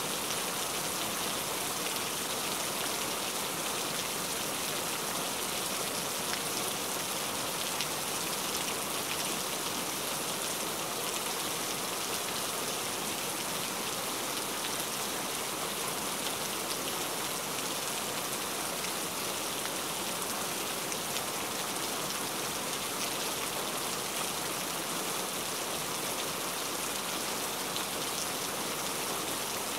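Heavy rain falling steadily: an even hiss flecked with the fine patter of individual drops.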